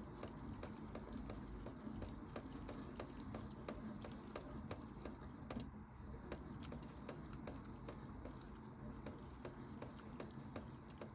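Bosch Logixx 8 toy washing machine running a wash cycle: the drum turning with water sloshing and a steady stream of irregular clicks and rattles.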